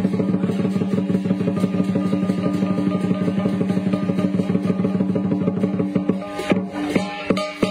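Chinese lion dance drum and percussion playing a fast, even roll of beats over a sustained ringing tone; about six seconds in the roll breaks into a few separate, spaced strokes before picking up again.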